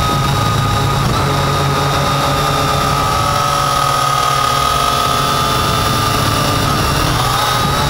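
Syma X8 quadcopter's four small electric motors and propellers in flight, heard from a camera mounted on the drone: a steady, high whine with a low hum beneath and a rush of air.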